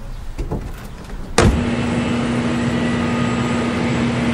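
Concorde's Olympus turbojet engines running steadily on the ground, a loud even roar with a steady whine, cutting in suddenly about a second and a half in after a quiet low rumble.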